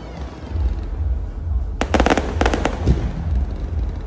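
Aerial fireworks: a rapid cluster of sharp cracks about two seconds in, over a steady low rumble.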